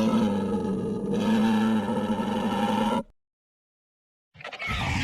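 Sound effect of an invented creature: a long roar of about three seconds at a steady pitch, then, after a pause, a shorter second call near the end.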